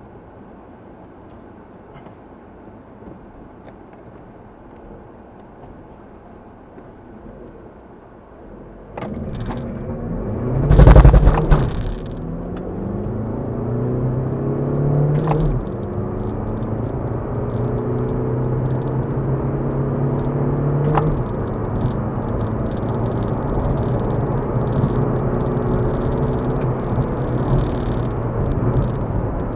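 Seat Leon 1P's 1.9 TDI four-cylinder turbodiesel, heard from inside the cabin, idling at the start line, then launching at full throttle about nine seconds in with a loud burst of noise. It then pulls hard, its pitch climbing, dropping at two upshifts and climbing again.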